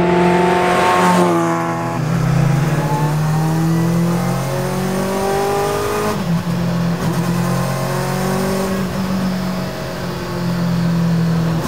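Kawasaki Ninja ZX-10R inline-four motorcycle engine in a mid-engine Rover Mini, revving hard and pulling up through the gears. Its pitch climbs and then drops back at each upshift, several times over.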